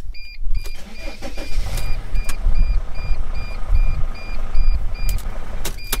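Mercedes-Benz T1N Sprinter's common-rail diesel engine cranking and starting, now that an ECM reset by disconnecting the battery has cleared the start error. A dashboard warning chime beeps evenly about three times a second over it, stopping about five seconds in.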